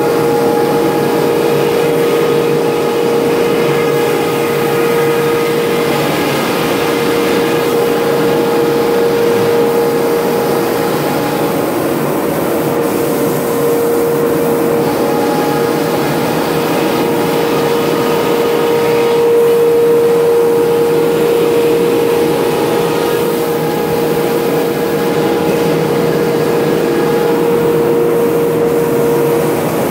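SCM industrial CNC router's spindle machining white-faced particleboard panels: a steady whine over a dense rushing noise.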